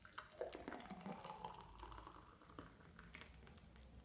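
Thick beetroot smoothie pouring from a steel blender bowl into a drinking glass, faint, with a few light ticks.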